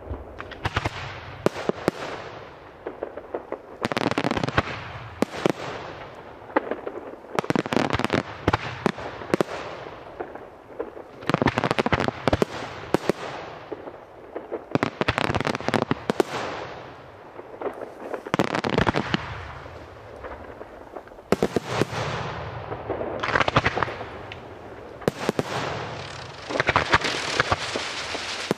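Aerial fireworks display: volley after volley of shells and comets bursting into crackling stars, each volley a tight cluster of sharp bangs and crackles, coming every two seconds or so.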